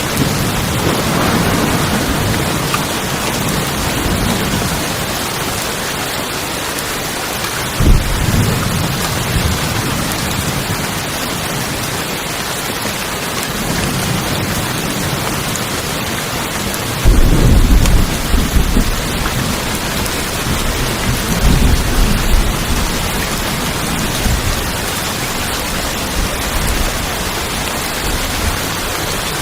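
Rain falling on a tin roof, a steady hiss, with thunder: a sudden low crack about eight seconds in, and a louder rumble starting a little past the middle that rolls on for a few seconds, followed by fainter rumbles.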